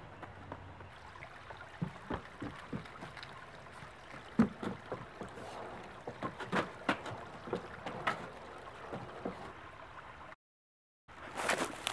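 Irregular footfalls and thumps of a person running and dancing in sneakers, on a wood-chip path and on the boards of a wooden footbridge; the loudest thump comes a little before halfway. A short rush of noise near the end.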